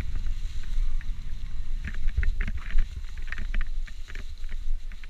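Wind buffeting the microphone of a camera riding along on an e-mountain bike on a trail, a heavy low rumble, with frequent short clicks and rattles from the bike that come thicker from about two seconds in.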